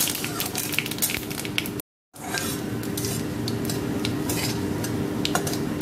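Whole spices (dried red chillies, bay leaves and fennel seeds) sizzling in hot mustard oil in a kadai while a spatula stirs them, its edge clicking and scraping on the metal pan. The sound cuts out briefly about two seconds in.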